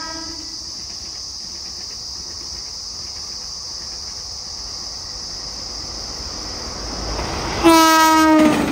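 Indian Railways WAP-4 electric locomotive hauling an express: the tail of a horn note fades in the first half second, then the train's rumble grows as it approaches at speed. Near the end it gives a loud single-pitched horn blast, rich in overtones, lasting under a second, its pitch sagging slightly as it passes close by.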